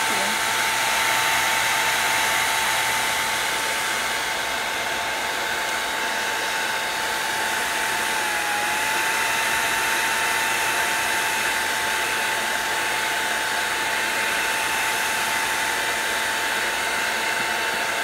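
An old hair dryer running steadily at close range, drying wet watercolour paint: an even rush of blown air with a constant motor whine that dips briefly about halfway through.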